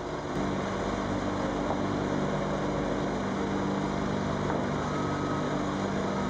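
Rough-terrain forklift's engine running under load while it holds a heavy load on its forks; it revs up about half a second in and then holds a steady note.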